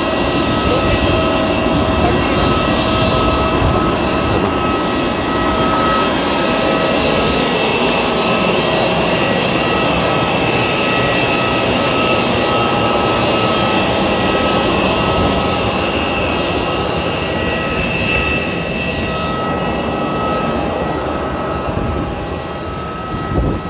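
Loud, steady jet whine and rush of an airliner on the apron, with several high tones held throughout. It drops and goes muffled near the end as the sound is heard from just inside the aircraft door.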